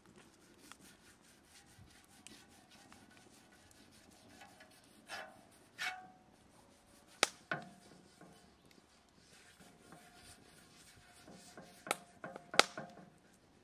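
A fork with a lump of fat scraping and clinking on a domed iron saj griddle as the fat is rubbed over the hot metal, with a few sharp clinks, the loudest near the end. A wood fire crackles faintly underneath.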